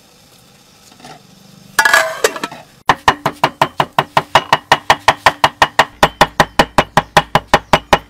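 Cleaver chopping rapidly on a wooden chopping block, mincing food with sharp, even strikes at about five a second, which begin about three seconds in after a brief loud noise.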